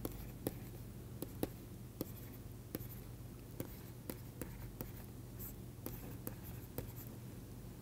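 Pen stylus tapping and scratching on a writing tablet as an equation is handwritten. It makes faint, irregular short clicks about once or twice a second over a low steady hum.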